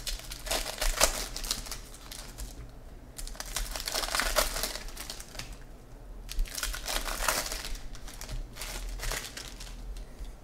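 Foil wrapper of a 2015 Bowman baseball card pack crinkling as it is torn open and handled, in four bursts of rustling with short pauses between.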